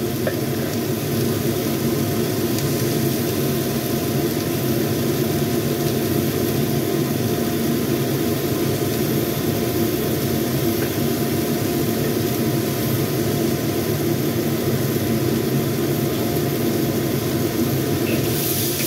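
Steady mechanical drone with a rushing hiss from the kitchen stove and its extractor fan, under a wok of stir-fried long beans and tomato. The drone has no breaks. Near the end a metal spatula comes into the wok and the hiss brightens.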